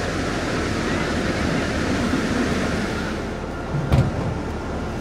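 Steady outdoor seafront noise: surf rushing and a light wash of wind and distant traffic. After about three seconds it changes to quieter street ambience, with a single sharp thump near four seconds.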